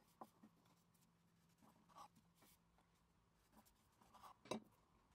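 Faint sounds of a knife cutting through a rolled, walnut-filled yufka pastry log on baking paper: soft scraping and a few light taps, the loudest about four and a half seconds in.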